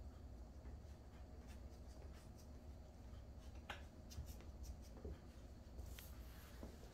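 Near silence: low room hum with a few faint, short clicks and scuffs scattered through the middle and near the end.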